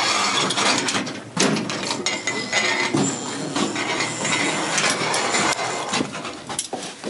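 Irregular metallic clanking and rattling, with footsteps knocking on steel decking, as people walk across a metal footbridge onto an open cable-lift platform.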